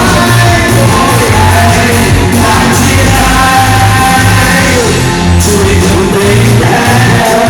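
Singers performing a song over loud pop-rock band accompaniment, holding long notes.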